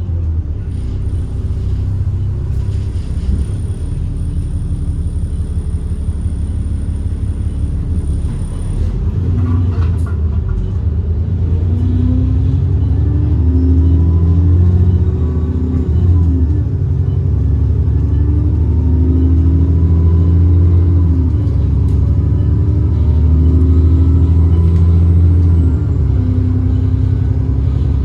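Alexander Dennis Enviro 400 double-decker bus engine running under way, its pitch rising and dropping several times through gear changes. A thin, steady high whistle sounds over it for the first several seconds and stops about nine seconds in.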